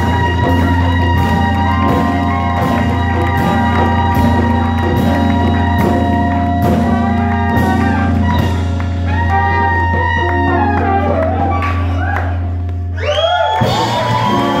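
Live band playing: saxophone, trombone and trumpets over drum kit, electric bass, hand drum and acoustic guitar, in a steady groove. The bass and drums cut out about a second before the end, leaving sliding pitched sounds.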